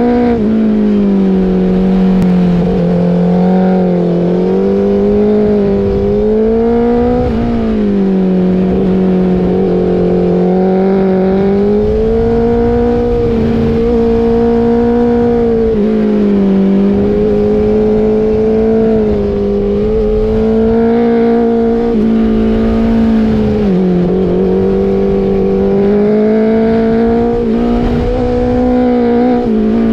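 BMW superbike's engine heard from on board, running at steady high revs with the pitch rising and falling every few seconds as the throttle is opened and rolled off through the bends, over low wind noise.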